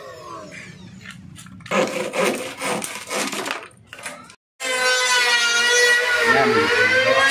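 A handsaw cutting plywood in a run of rough strokes. Then an electric hand planer runs with a steady whine, its pitch dipping briefly as it bites into the door's edge.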